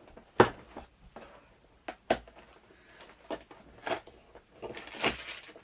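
Handling noise from the cardboard advent calendar and its small vinyl figures: about five sharp taps and knocks, the loudest about half a second in, then a short papery rustle near the end.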